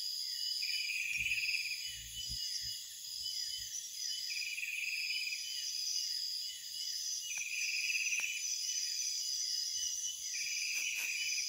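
Chorus of night insects chirping: a steady high trill with a louder chirping phrase repeating about every two seconds. A few faint low bumps sound in the first few seconds.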